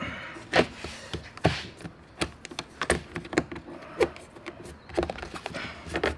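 Hands working EVA foam traction turf in under a jet ski's plastic trim panel: irregular taps and clicks from the plastic, with a few short rubbing scrapes of foam against plastic.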